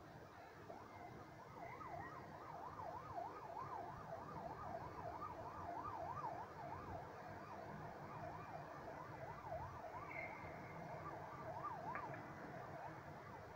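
Faint emergency-vehicle siren in a fast yelp, its pitch sweeping up and down about three times a second, over a low steady city hum.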